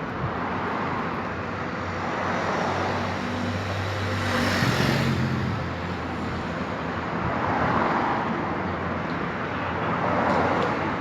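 Steady road traffic noise with a low engine hum, swelling as a vehicle passes about four to five seconds in.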